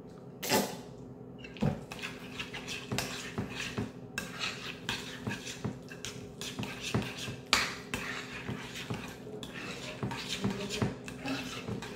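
A utensil clinking, tapping and scraping against a bowl in irregular strokes as egg salad is mixed and chopped, over a low steady hum.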